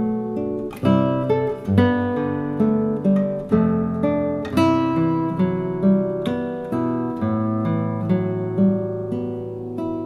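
Acoustic guitar music: picked notes and chords, a new note or chord struck about every half second to second.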